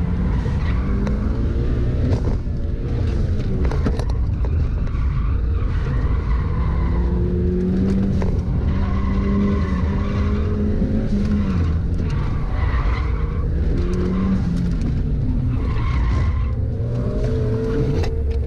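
Mitsubishi Lancer's engine heard from inside the cabin, its revs rising and falling again and again as the car accelerates and brakes between cones, over a constant low road and wind rumble. Tyres squeal in the turns several times.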